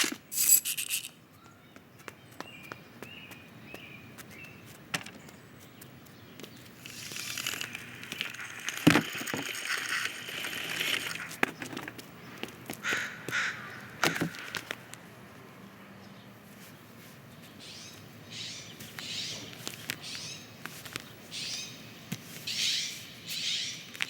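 Animated-film sound-effects track with no music or dialogue: a few faint bird chirps, then rustling and scraping foley with scattered clicks and a sharp knock about nine seconds in, and a run of repeated rustles near the end.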